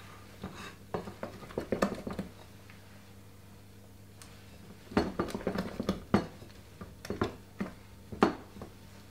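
Wooden spoon stirring chocolate cake batter in a glass mixing bowl, knocking and scraping against the glass in quick runs, with a pause of about three seconds in the middle.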